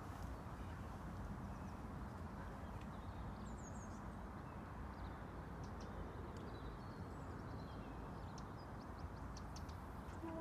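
Steady low outdoor rush of river-bank background noise, with a few faint high chirps and short ticks now and then.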